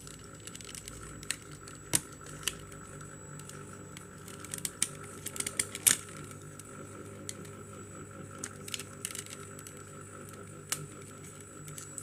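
Scattered small plastic clicks and taps as a green OPC drum is handled and seated into a laser printer toner cartridge's plastic frame, with a quick cluster of clicks about five to six seconds in. A faint steady hum runs underneath.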